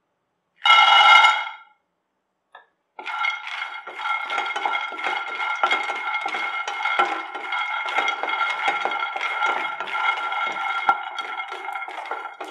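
Raw peanuts poured from a ladle into an empty non-stick frying pan, a loud rattle of about a second with the pan ringing. After a short pause they are stirred with a wooden spatula while dry-roasting, giving a continuous clatter of nuts rolling and skittering on the metal pan.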